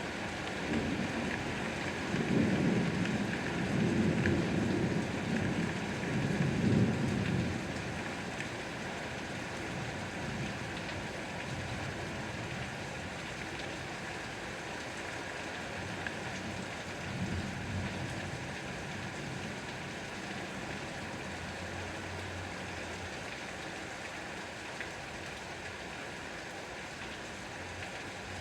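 Steady rain falling, a continuous even hiss, with low rolling rumbles of distant thunder for several seconds at the start and again more faintly just past the middle.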